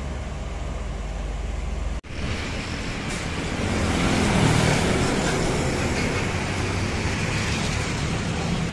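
Heavy truck diesel engine running with a steady low drone. About two seconds in, the sound cuts abruptly to street traffic, where a container truck drives past close by among motorcycles. Its engine and tyre noise swell to the loudest point near the middle, then ease off.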